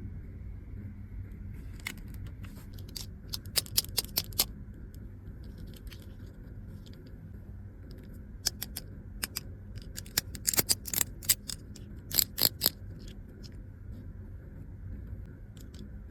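Small plastic toy pieces clicking and tapping as they are handled, in two clusters of sharp clicks, over a steady low hum.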